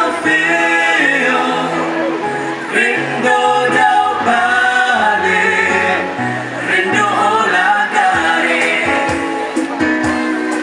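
Mixed vocal group of four women and two men singing a song in harmony into microphones, with low held bass notes under the voices for most of it.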